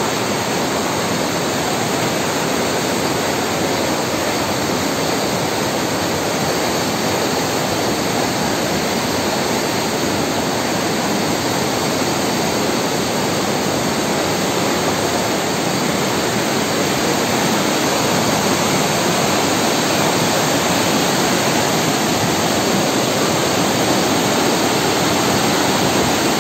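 Whitewater of a snowmelt-fed gorge river rushing and cascading over rocks: a steady, dense rush that grows a little louder near the end.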